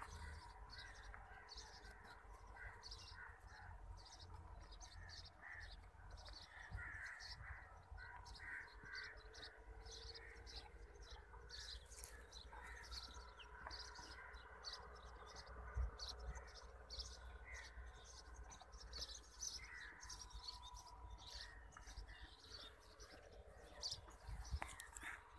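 Faint chorus of birds chirping and calling over and over, with a low rumble of wind or handling underneath.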